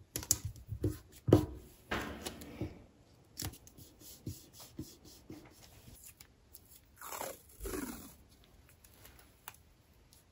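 Adhesive tape being handled: painter's tape and washi tape peeled off the roll and pressed down along the edge of a paper canvas on a drafting table, making irregular crackly peels, rustles and light taps, with a louder knock about a second and a half in.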